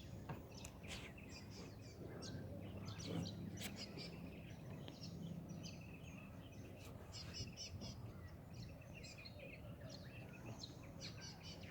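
Birds chirping and calling in many short, quick runs of notes, over a faint steady low hum of background noise.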